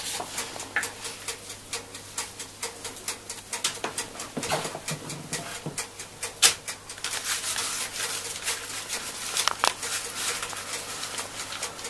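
Hands scooping minced raw tuna out of a plastic food-processor bowl and patting it into patties, with scattered soft taps and clicks of the bowl and hands on the counter, the sharpest about six and a half seconds in. A faint steady hum runs underneath.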